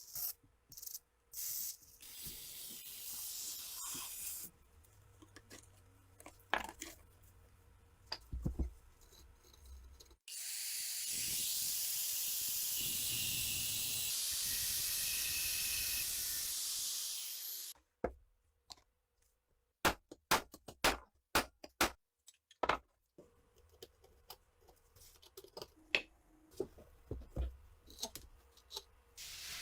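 A steady, loud hiss lasting about seven seconds in the middle, with scattered sharp clicks and knocks before and after it, from work on the rusty parts of an MP40 submachine gun.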